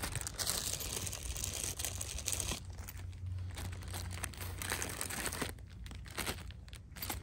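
Thin clear plastic bag crinkling as it is handled and opened: a run of continuous crinkling for the first couple of seconds, then scattered, irregular crinkles.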